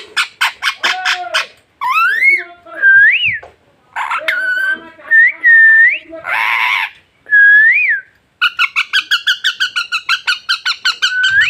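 A pet parrot whistling: a series of clear whistled notes that swoop up and down in pitch, with fast rattling runs of clicks near the start and through the last three seconds, and a short harsh squawk about halfway.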